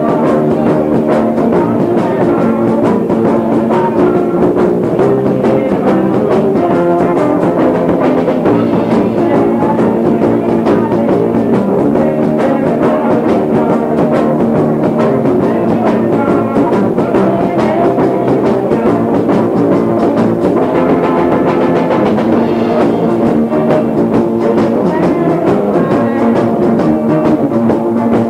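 Live band playing, recorded from down a hall on a faulty cassette recorder, so it sounds muffled and the vocals can hardly be heard.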